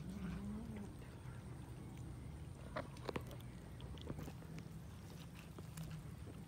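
Several cats eating from a roasted chicken carcass: chewing and tearing at the meat, with a few sharp clicks about halfway through. A low growl from a cat over the food bends up and down briefly at the start and comes back as a steady drone over the last two seconds.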